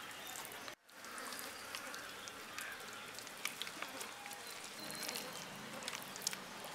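Wet squishing and small clicks of hands spreading thick masala paste over a large sea bass's skin and into its belly cavity, over steady background noise. The sound drops out for a moment just under a second in.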